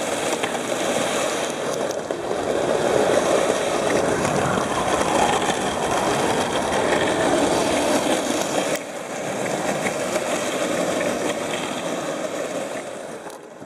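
Longboard wheels rolling over a smooth concrete floor, a steady rolling rumble. It drops suddenly about nine seconds in, then picks up again and fades out near the end.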